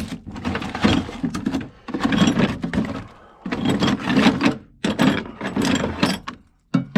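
Rummaging through a cluttered tool drawer: metal tools clatter and scrape, and the drawer slides, in several bouts a second or so long with short pauses between them.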